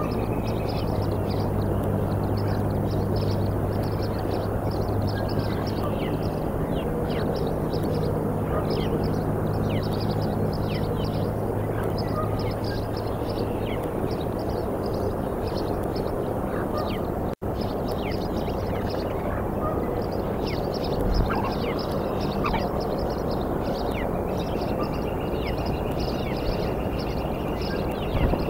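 Outdoor ambience at a bald eagle nest: a steady background hiss with a low steady hum that fades out a little past halfway, and many short high chirps scattered throughout.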